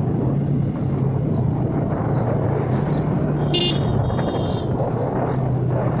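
A vehicle engine running steadily on the move, with road and wind noise, recorded from on board. A little past halfway come two short, high-pitched beeps.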